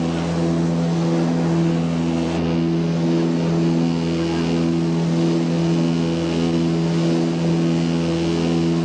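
Antonov An-24's twin AI-24 turboprop engines and propellers heard in flight, a steady, loud drone with a slow, regular pulsing of its tones.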